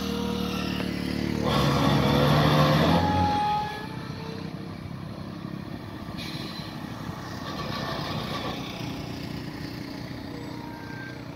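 Road traffic on a hill bend: a car drives past close by, loudest from about 1.5 to 3.5 s in, then the steadier running of a heavy truck's diesel engine climbing slowly, with a motorcycle approaching.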